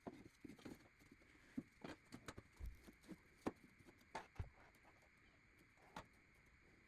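Irregular light clicks and knocks, a dozen or so scattered through, from cedar boards and tools being handled at the workbench.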